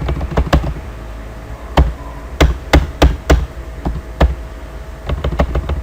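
Sharp, irregular clicks and taps from a computer mouse and keyboard, about a dozen single presses with uneven gaps, some in quick pairs.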